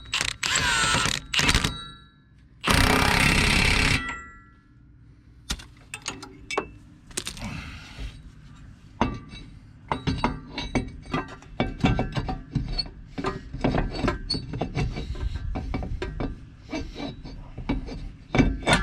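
Two short bursts of a power tool, typical of an impact wrench running on lug nuts, in the first few seconds. After them come scattered metallic clinks and knocks of tools and wheel hardware being handled.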